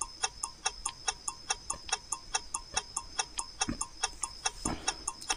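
Ticking-clock sound effect running under a quiz countdown timer: quick, even ticks, about five a second, alternating louder and softer.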